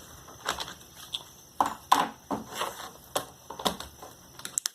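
Plastic clicks and knocks from a Dell Inspiron 15 3000 laptop's battery being unlatched and pulled out: about ten sharp clicks, with a quick run of them near the end.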